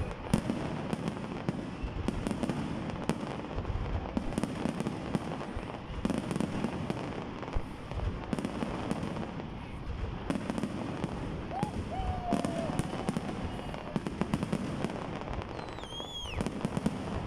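Aerial fireworks display bursting in quick succession: a continuous run of sharp bangs and crackles.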